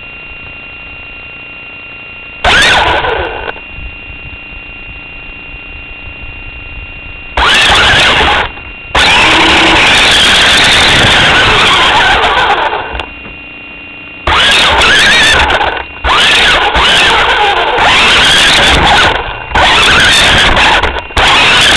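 Toy-grade JLX Overdrive RC car's electric drive motor and gears whining in loud bursts as it drives over grass and leaves, heard close up from a camera on the car. There are four runs: a short one about two seconds in, one at about eight seconds, a longer one through the middle, and an almost unbroken run over the last third, with quiet pauses between them.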